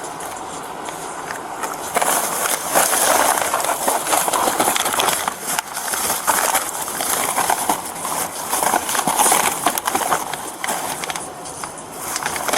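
Rustling and scraping noise with irregular small knocks, as a body-worn camera's microphone rubs against clothing while its wearer moves, louder from about two seconds in.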